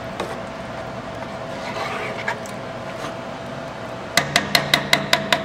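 Metal spoon stirring a thick rice-and-meat mixture in an aluminium pot, a soft scraping, then a rapid run of about eight sharp clicks near the end.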